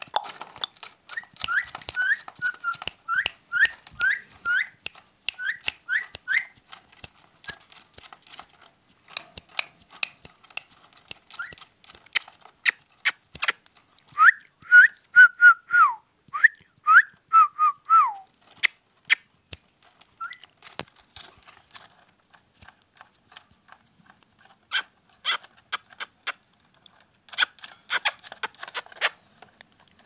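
Ringneck parrot whistling: a run of short rising whistled notes at about two a second, then after a pause a second run, some notes gliding down. Sharp clicks are scattered throughout.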